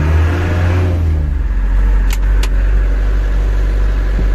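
Old truck's engine running, heard from inside the cab: a steady low drone whose pitch lines are clearest in the first second and a half. Two short sharp ticks about two seconds in.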